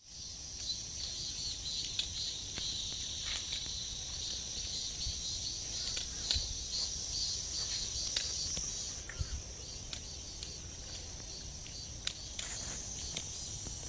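Outdoor garden ambience of insects chirring steadily in a high, pulsing drone, with a low rumble beneath and a few short clicks and snaps scattered through.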